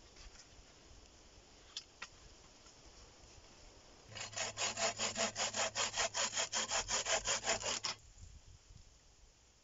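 Hand saw cutting through a birch pole with quick back-and-forth strokes, about five a second for roughly four seconds, stopping abruptly. A couple of light wooden knocks come before it.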